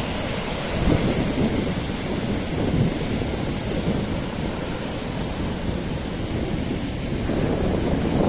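Wind buffeting the microphone in a continuous, uneven low rumble over a steady rushing of sea waves on the shore.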